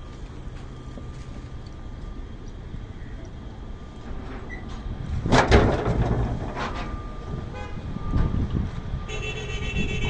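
Hino truck's diesel engine running with a steady low rumble. A loud knock about five seconds in, a lighter one a second later, and a short pitched tone near the end.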